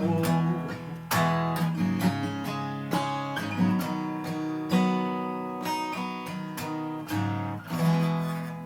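Acoustic guitar playing the closing chords of a song, struck roughly once a second, with the last chord ringing out and fading near the end.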